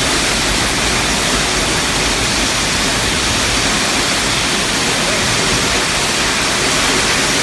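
Heavy storm downpour of rain and hail: a loud, steady rushing hiss with no let-up.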